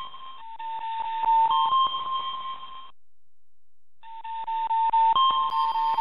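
Electronic alert tones from a live seismic monitor, triggered as it registers strong ground motion: a two-note beeping that steps between a lower and a slightly higher pitch over rapid clicking. It stops for about a second near the middle, then starts again.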